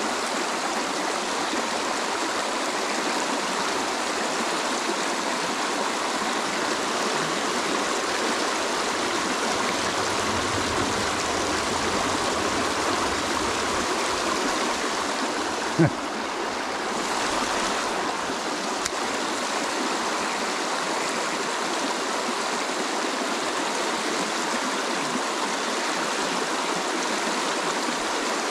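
Shallow, rocky mountain trout creek rushing over stones and riffles in a steady wash of water noise. A single brief thump comes a little past halfway.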